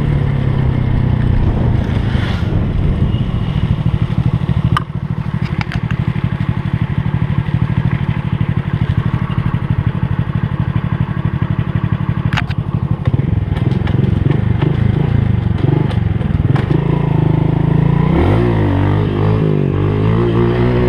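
Honda Pop small single-cylinder motorcycle engine running steadily while riding a dirt trail, with a few sharp knocks and rattles. Near the end the revs rise and fall repeatedly.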